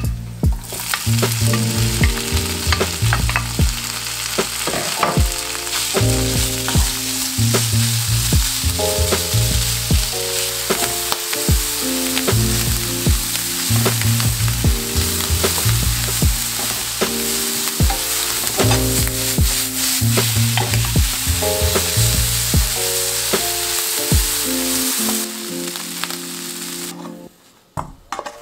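Food frying in a pan: a steady sizzle that stops about 27 seconds in, heard over background music.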